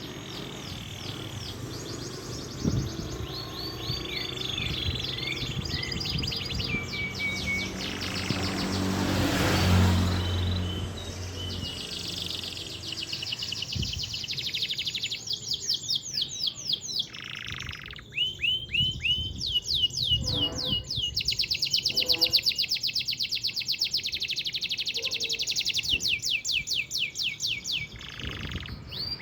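Domestic canary singing long rolling trills: fast runs of repeated sweeping notes that change pattern every few seconds. A swell of hissing noise with a low hum rises and peaks about ten seconds in.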